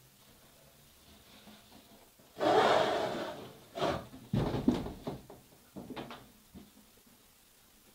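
Handling sounds: a long rubbing scrape about two and a half seconds in, then several shorter knocks and rustles that die away.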